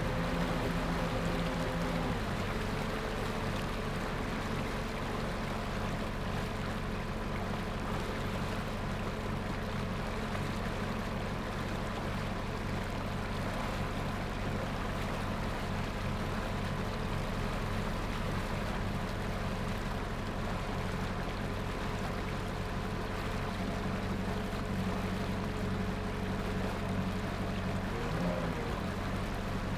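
Boat engine running steadily under way, with the propeller wash churning and splashing behind the stern. The engine note shifts once about two seconds in.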